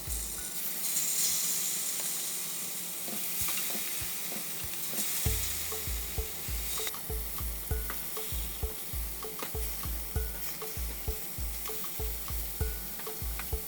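Peri-peri-marinated chicken sizzling on a hot grill, a steady frying hiss. From about five seconds in, a regular low thumping runs underneath.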